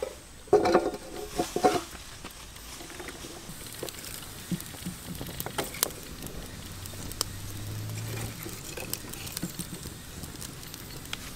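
Wood fire burning under a wok of snails, with a steady crackle and scattered sharp snaps and pops. A few louder sounds come in the first two seconds.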